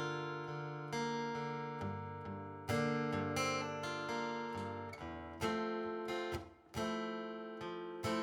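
Solo acoustic guitar strumming chords, each strum left to ring for a second or two before the next, playing the intro of a song before the vocal comes in.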